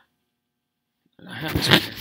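Dead silence for about a second, then a person's breathy, indistinct voice with no clear words.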